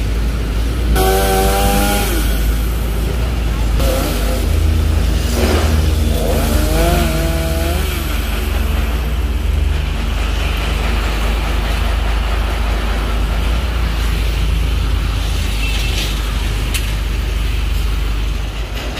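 An engine running steadily, its pitch dropping briefly about a second in and wavering again a little later.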